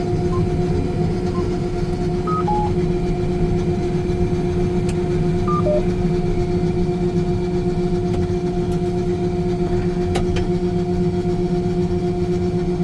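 Combine harvester running with a steady, even hum and low rumble. A few short, faint beeps at different pitches sound in the first half.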